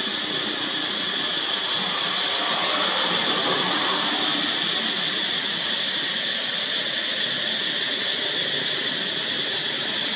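Steady high-pitched drone of forest insects, unbroken and even in level, over a faint rustle of leaf litter.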